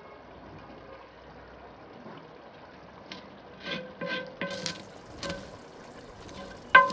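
Wooden spatula stirring boiled rice in a large aluminium pot, knocking and scraping against the metal. The pot rings briefly after each knock, in a quick run starting about halfway through, with the loudest knock near the end.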